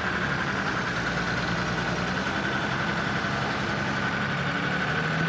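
Truck's diesel engine running steadily at low revs while the truck creeps its front wheel onto a tyre laid flat, pressing the tyre's bead off the rim. A steady high whine sits above the engine note.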